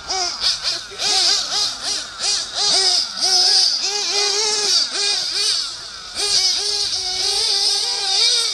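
A Hot Bodies Hyper 7 1/8-scale nitro RC buggy's small engine revving up and down in quick repeated throttle bursts as it races, over a steady hiss.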